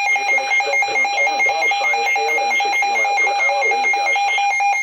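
Electronic weather alert alarm sounding over the weather radio's computer voice: a steady mid-pitched tone with a higher tone switching back and forth between two pitches, cutting off abruptly just before the end.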